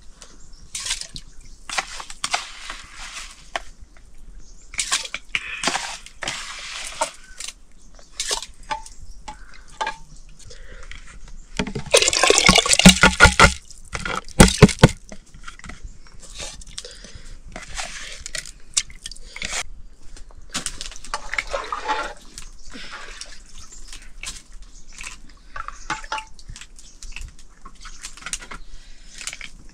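Water splashing and dripping in repeated short bursts, with a louder stretch of splashing and sharp clatter about twelve seconds in.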